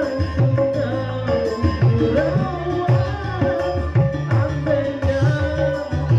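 Indonesian popular music with a hand-drum beat and a wavering melody line, with no sung words here.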